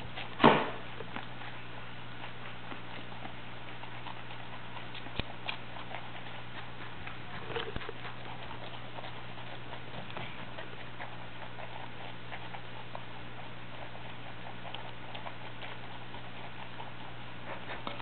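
Pet rabbits chewing vegetables: scattered small crunching clicks over a steady low hum, with one loud knock about half a second in.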